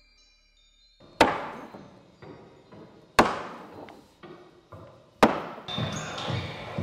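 Three loud, sharp percussive hits exactly two seconds apart, each ringing out and dying away, followed from about six seconds in by a denser rhythmic texture with high held tones, as in an electronic soundtrack.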